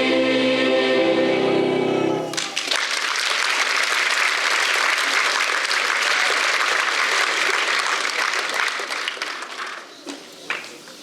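A choir holds the final chord of a song and cuts off about two seconds in, followed by audience applause that dies away near the end.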